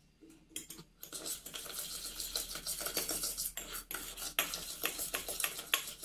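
A stainless steel spoon beating instant coffee, sugar and a little hot water in a small steel pot, scraping and clinking rapidly against the pot. It starts about a second in. The mixture is being whipped into a light, frothy coffee cream.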